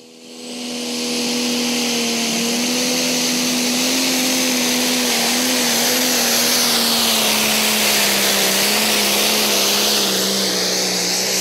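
Diesel pulling tractor at full throttle hauling a weight-transfer sled down the track: a loud, steady engine note with a strong hiss over it, swelling up in the first second.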